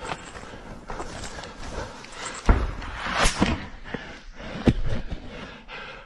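Several sharp bangs and knocks over constant rustling movement, the loudest about two and a half seconds in and smaller ones near three and a half and five seconds.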